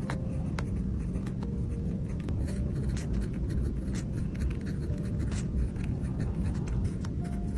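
Pen tip scratching and tapping across paper in a run of short strokes, over a steady low rumble and faint background music.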